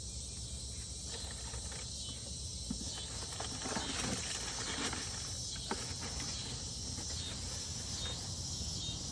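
Steady high-pitched drone of a cicada chorus, with a few faint clicks from objects being handled.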